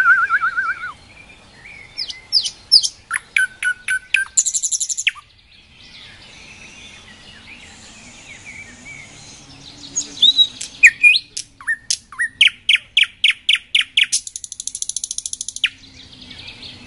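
Nightingale singing: two loud song phrases, each a string of whistled notes and quick sweeps that speeds into a fast rattling trill, with a pause of several seconds between them. Fainter bird chirps can be heard in the pause.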